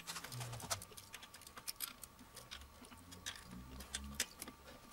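Faint, irregular metallic clicks of a 6 mm hex key being turned and reset in the handlebar clamp bolt of an electric scooter as the bolt is tightened.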